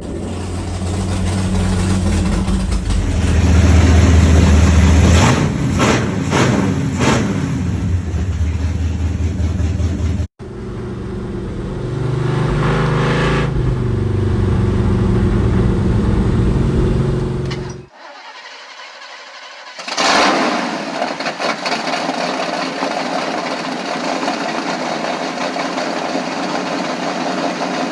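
Motor vehicle engine running and revving, in several segments that cut off abruptly, with a brief lull about eighteen seconds in.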